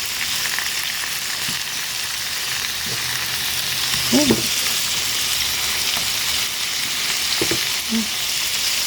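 Sliced potatoes frying in oil in a skillet, a steady sizzle, with a few brief sounds as they are turned over with a spatula.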